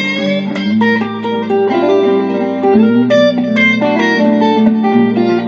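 Electric guitar playing a run of single-note blues fills between sung lines, over held low notes.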